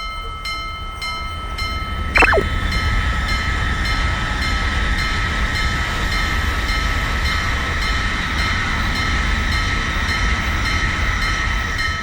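Japanese railroad crossing alarm ringing in a steady, even rhythm over the low rumble of a passing train. A brief falling whistle-like tone sounds about two seconds in.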